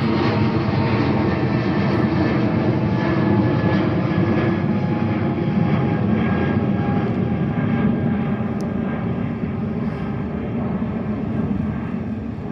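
United Boeing 777-200 departing under takeoff thrust, its twin Pratt & Whitney PW4000-series jet engines giving a loud, steady noise with faint whining tones that sag slightly in pitch. The sound eases off gradually near the end.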